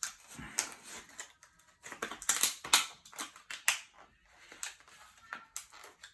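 Hands working a laptop RAM stick in its slot: a run of irregular clicks, taps and scrapes of plastic and metal, with the sharpest clicks about two to four seconds in.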